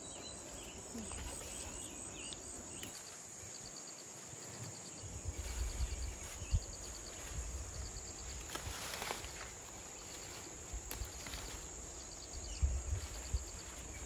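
Insects calling outdoors: a steady high-pitched drone with short trains of rapid chirps repeating about twice a second, over occasional rustling and low thumps.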